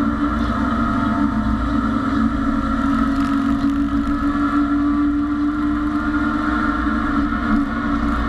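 BMW E30 race car's engine running hard at high revs under load, heard from inside the cockpit. The pitch holds fairly steady through a corner, with a brief dip in level near the end.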